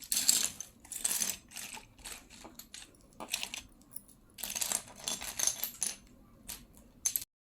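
Small plastic building-block pieces clicking and clattering as they are handled, in irregular bursts with short pauses. The sound cuts off abruptly near the end.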